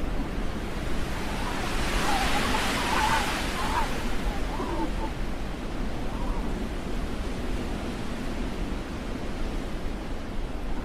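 Steady rushing noise like wind, swelling and growing brighter for a couple of seconds about two seconds in, with faint traces of distant voices.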